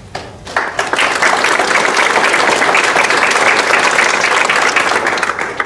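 Audience applauding, starting about half a second in and stopping just before the end.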